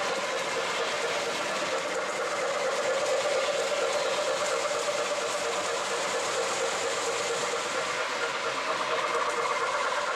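O gauge model steam locomotive running steadily along the track: a continuous hiss and rumble of wheels on rail mixed with its onboard steam sound effects.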